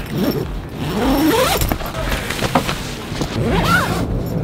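Nylon tent door zipper being pulled, its buzz rising in pitch as it runs, twice.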